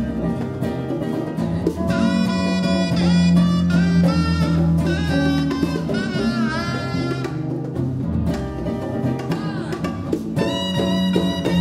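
Live acoustic jazz: a saxophone plays a melody that slides and wavers in pitch, over acoustic guitar, bass and congas.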